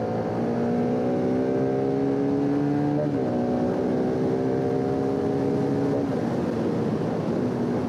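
Bajaj Pulsar RS200's single-cylinder engine accelerating through the gears with clutchless upshifts. The engine note climbs steadily, then drops sharply about three seconds in and again about six seconds in as each higher gear goes in.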